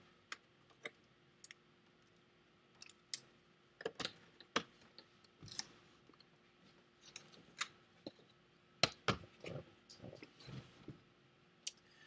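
Irregular light clicks and knocks of the white plastic front bezel of a first-generation Intel iMac being handled and turned over in the hands, with a cluster of louder knocks about nine seconds in.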